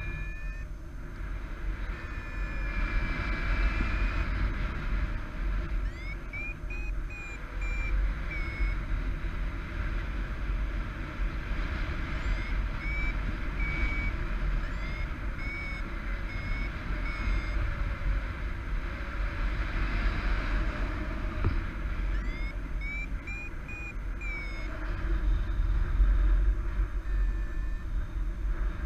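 Paragliding variometer beeping in quick runs of high beeps, three runs of about five or six beeps each, the sound it makes while the glider is climbing in a thermal. Steady wind rumble on the microphone runs underneath.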